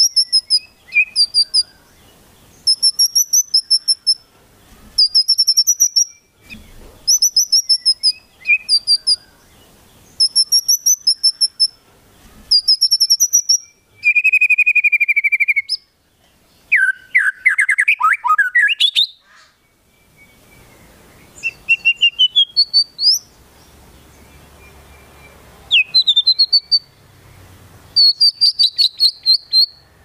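A caged white-rumped shama (murai batu) singing loudly in short repeated phrases of rapid high notes about every two seconds. A buzzy steady trill comes about halfway through, then swooping and rising phrases. The song is packed with mimicked calls of other birds, which the uploader names as konin and kinoi.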